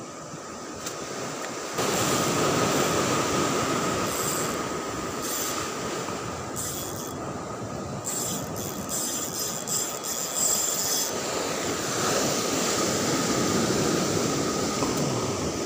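Ultralight spinning reel being wound in against a hooked fish: a steady whine with a stretch of fast clicking in the middle, over the noise of surf breaking against the rocks.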